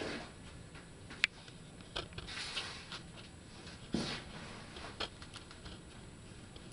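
Quiet small-room sound with scattered light clicks and taps: a sharp click a little over a second in, a short rustle a little after two seconds, and a soft knock at about four seconds.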